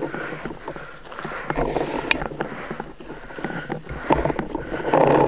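Hard breathing and rustling as a paintball player moves low and fast through dry grass, with one sharp click about two seconds in.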